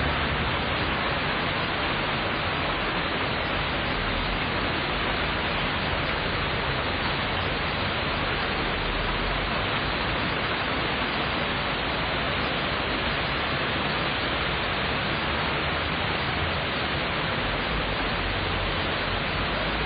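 Steady rain falling in a city, an even hiss with no thunder.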